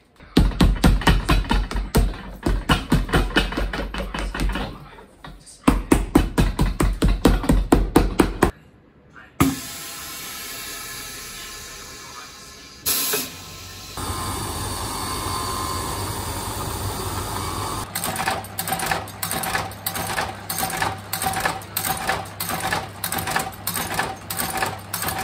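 Boot-resoling workshop sounds in turn: fast, even knocking, then the hiss of a pneumatic sole press ending in a sharp blast of released air, a steady machine hum, and a sole-stitching machine running with a regular stroke, nearly two stitches a second.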